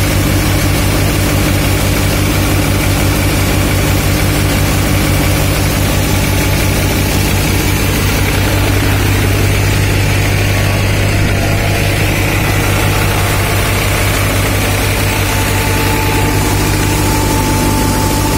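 New Holland tractor's diesel engine running at a steady speed, powering a multi-crop thresher.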